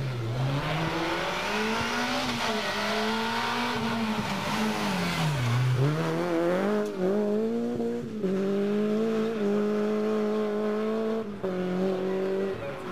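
Rally car engine working hard through a stage: revs swing up and down with the throttle, drop deeply about five seconds in as it lifts for a corner, then climb again in steps as it changes up through the gears. A rushing noise of tyres on the road sits under the engine in the first half.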